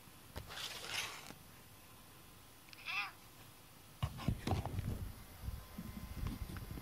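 A cat meowing: short calls about a second in and about three seconds in. From about four seconds in, loud rustling and bumping close to the microphone.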